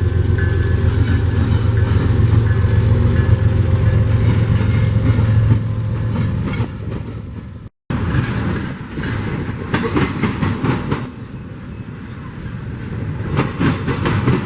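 Union Pacific diesel freight train passing: a heavy locomotive engine rumble, then after a brief cut the clickety-clack of wagon wheels over the rail joints.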